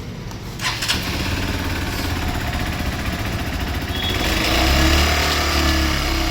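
Hero Xpulse 200 single-cylinder motorcycle engine starting about a second in and running, its low rumble swelling briefly with a rev around four to five seconds in. It carries a noise from inside the engine that the owner considers a fault on a new bike.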